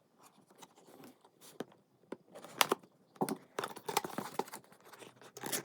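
Cardboard and plastic packaging being handled and opened: scattered rustling, crinkling and sharp taps, a few louder ones in the middle and near the end.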